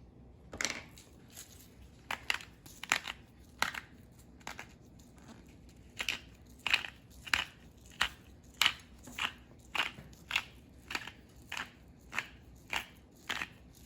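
Pepper grinder cracking black peppercorns: a run of short crunching grinds, a few irregular ones at first, then after a short pause a steady series of about two grinds a second.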